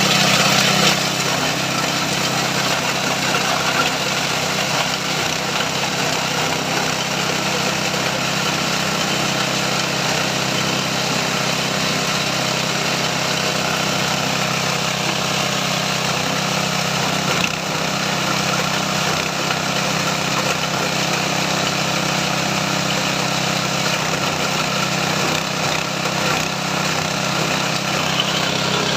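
Corn cob grinding machine, a feed chopper with shearing steel knives, running steadily: a constant low drone under a dense, even rushing noise as it grinds the cobs.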